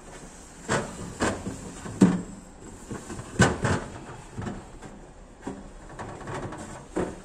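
Kitchen cabinet doors being opened and closed: a series of about six knocks and clunks, the loudest about two seconds in, and two close together about three and a half seconds in.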